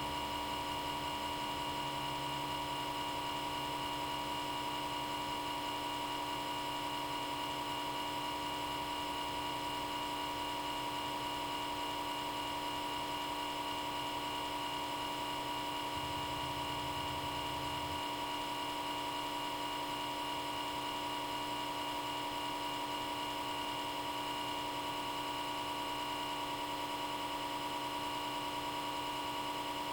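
Small-diameter cooling fan in a Comcast Xfinity X1 DVR cable box running at high speed, a steady loud hum made of several fixed, unchanging tones. The fan runs flat out all the time, a constant buzz the owner finds extremely annoying.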